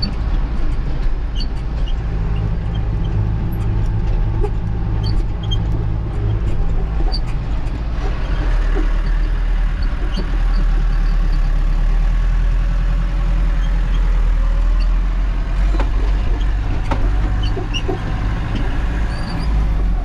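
Tractor engine running steadily while driving, a constant low hum with light clicks and rattles.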